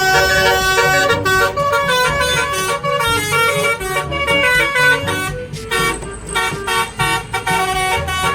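Telolet basuri bus horn playing its musical tune: a run of horn notes that change pitch in quick steps, several notes sounding together, without a break.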